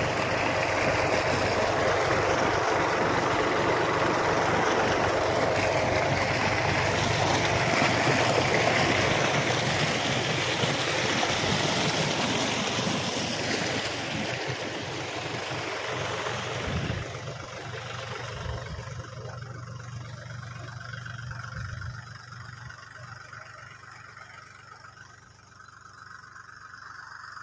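An engine running steadily under a loud rushing noise, growing fainter from about sixteen seconds in.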